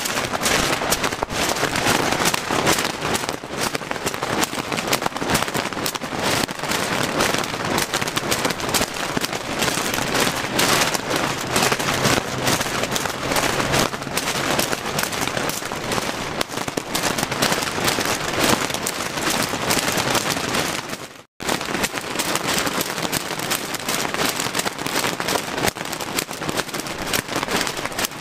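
Strong wind buffeting, full of dense rapid crackling and rattling, with a brief cut about 21 seconds in.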